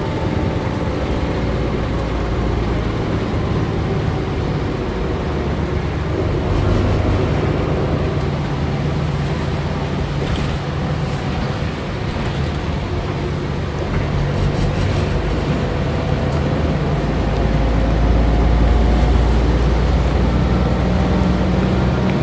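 Inside a 1997 Mercedes-Benz O405 GN2 articulated bus: the diesel engine and drivetrain running steadily, a constant rumble with some faint gliding whine, getting louder and deeper in the last few seconds.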